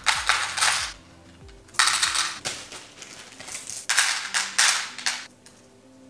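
Handfuls of small plastic lunch picks dropped into the compartments of a clear plastic organizer box, clattering against the plastic in about four short bursts.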